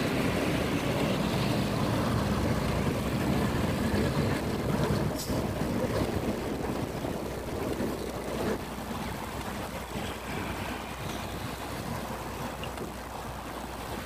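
Motorcycle running along a city road, its engine humming steadily under wind rushing over the microphone and tyre and traffic noise. It grows gradually quieter after about five seconds, with one faint click around then.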